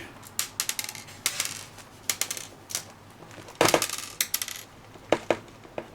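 Small metal laptop screws dropping out of an upturned laptop and clinking onto the desk: irregular clusters of light, ringing ticks, the loudest cluster a little past the middle.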